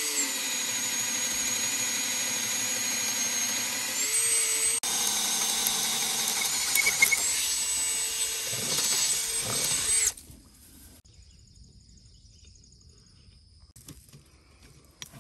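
Cordless drill boring a long auger bit through a wooden fence post, its motor whining steadily under load. The whine rises in pitch just before it cuts out briefly about five seconds in, then runs on and stops about ten seconds in.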